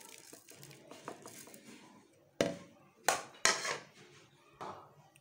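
Spices and chopped ginger and chillies sliding off a ceramic plate into a plastic bowl of chopped onions with light ticks, then a few sharp clatters of the crockery about halfway through, two of them loudest.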